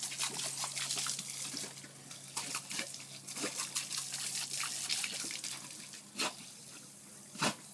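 Garden hose spray hissing and splashing on a concrete driveway, broken by many short, sharp wet snaps and splats as a golden retriever bites at the stream of water.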